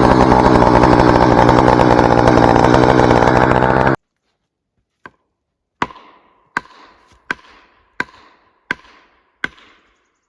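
Chainsaw running at full throttle, cutting off suddenly about four seconds in. After a short pause come six sharp, ringing blows, evenly spaced about 0.7 s apart: felling wedges being driven into the back cut to lift a hard-leaning spruce.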